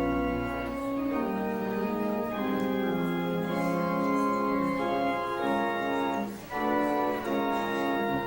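Organ playing sustained chords that move in steps, with a brief break about six seconds in.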